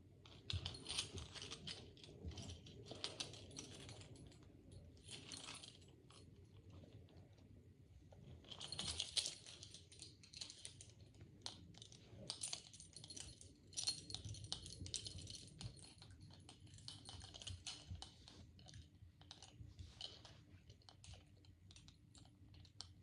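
Chained metal handcuffs being handled, giving faint, irregular small clicks and clinks of metal.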